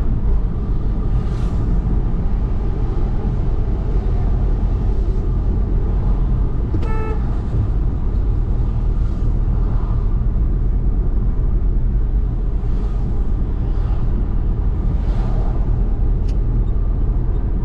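Steady low road and engine rumble of a car driving through city traffic, heard from inside the car, with a short vehicle horn toot about seven seconds in.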